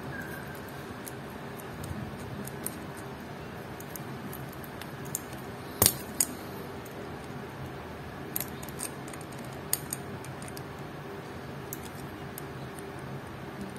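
Short metallic clicks and ticks from the pins of an adjustable case-back wrench working in the notches of a steel watch case back as it is turned, with a sharp click about six seconds in and scattered lighter ones after, over a steady background hum.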